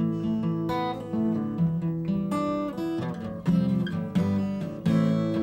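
Acoustic guitar music: strummed chords with ringing plucked notes at a steady pace.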